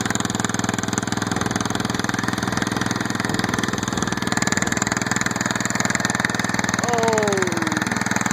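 Straight-piped engine of a Gravely walk-behind tractor running steadily under load as it drives a rotary tiller through soil, its exhaust loud and unmuffled.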